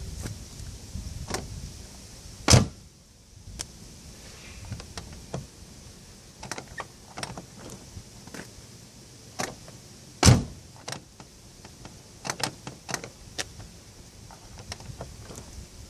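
BMW Z3 passenger door being worked from the outside: the exterior handle and latch clicking and rattling, with a heavy clunk about two and a half seconds in and another about ten seconds in. The handle does not open the door on its own; the latch lets go only with the door pushed in at the handle.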